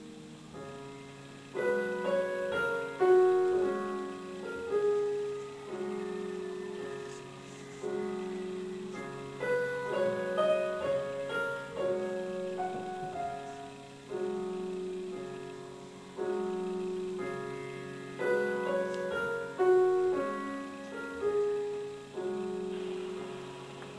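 Background piano music: a slow, gentle melody over chords, each group of notes struck and then fading.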